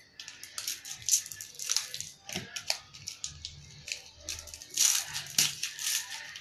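Plastic snack wrapper crinkling and rustling in the hands as it is cut open and handled, in irregular crackles, loudest around five seconds in.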